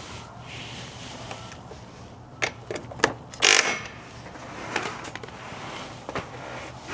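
Hand tools clicking and knocking on metal during motorcycle wheel work, with a short, louder clatter about three and a half seconds in.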